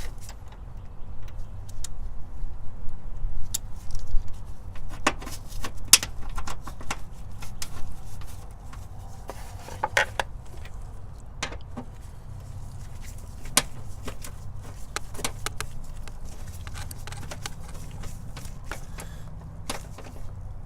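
Hands working a car's negative battery cable and its connector: scattered clicks and small metallic taps, busier in the first half, over a steady low rumble.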